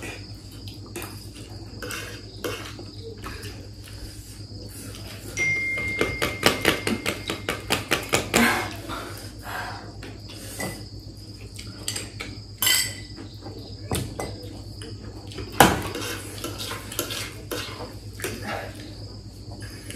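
Metal forks clinking and scraping on ceramic plates as noodles are eaten, with a quick run of clinks a few seconds in and a few sharper single knocks later.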